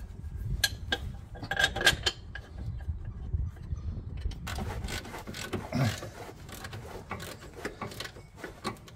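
Metal bolts being started into the steel cover plate of a van's front leaf spring and control arm mount: a few sharp metal clinks, then about halfway in a longer run of rapid clicking and scraping as the threads are turned.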